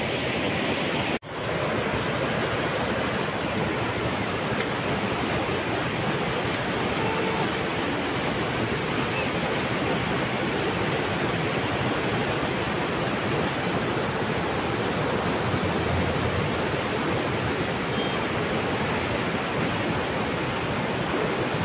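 Fast-flowing river water rushing steadily over rocks and a small weir. The sound drops out abruptly for an instant about a second in.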